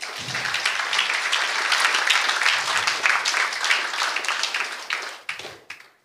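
Audience applauding at the end of a talk: a dense patter of many hands clapping that starts at once, holds for about five seconds and fades out near the end.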